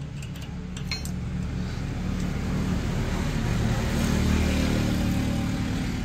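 A motor vehicle engine running close by, a low steady rumble that grows louder toward the middle and eases off near the end, like a vehicle passing. A few faint metallic clicks in the first second.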